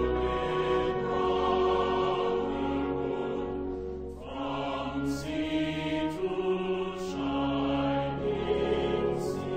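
Background music of slow, long-held chanting or choir-like notes that change every second or so, with a few short hissy accents.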